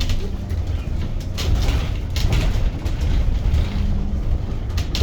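Cabin noise inside a moving Edison Motors SMART 093 electric bus: a steady low road and tyre rumble, with a few short rattles and knocks from the bus body.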